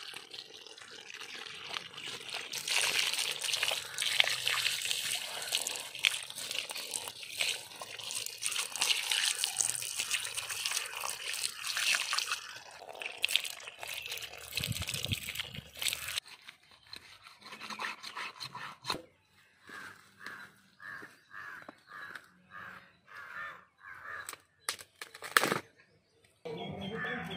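Water splashing and trickling as hands pour water over a turmeric-coated cow head and rub it clean. In the second half it gives way to a quieter run of evenly spaced strokes, a little over one a second.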